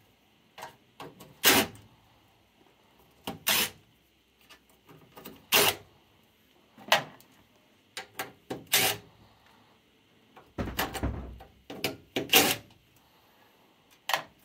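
Sharp metallic knocks and clanks against a furnace's sheet-metal cabinet as its panels and screws are handled, one every second or two, with a longer clatter near the end.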